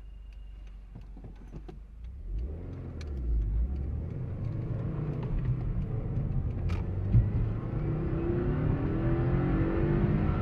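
Turbocharged flat-four engine of a 2015 Subaru WRX heard from inside the cabin, idling quietly at first, then pulling away from about two seconds in, getting louder and rising in pitch, with a few faint ticks over it.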